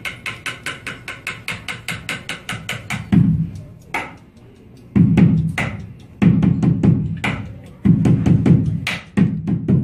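A pen tapped in a fast, even roll of about seven taps a second. About three seconds in, a slower boom-bap beat starts: heavy foot stomps on the stage floor alternate with single sharp pen taps.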